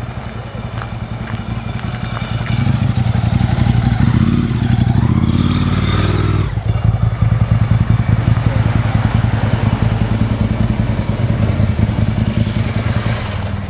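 Car engine running close by as the sedan creeps along the road, a steady low rumble that rises in pitch for a moment about four to six seconds in.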